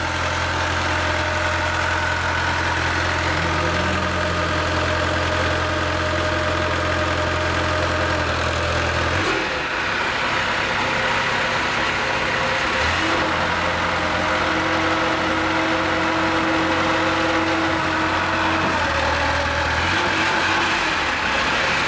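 Truck crane engine idling steadily; its deep low hum drops away about halfway through while the engine noise carries on.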